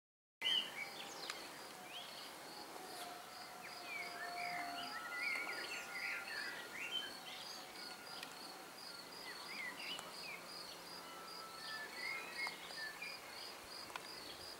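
Outdoor ambience: an insect chirping in a steady high-pitched pulse about two to three times a second, with birds twittering and whistling in short phrases over it.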